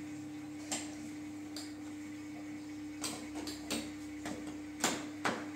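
Gloved hands and a sponge rubbing and handling the plastic body of a kids' ride-on toy car: scattered light clicks and knocks, a few over several seconds, over a steady low hum.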